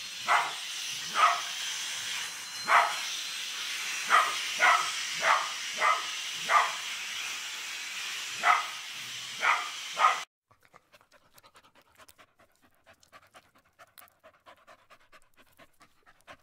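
A dog barking at a canister vacuum cleaner, about eleven sharp barks over the vacuum's steady hiss. About ten seconds in, both cut off abruptly, giving way to a faint recording of an animal panting quickly.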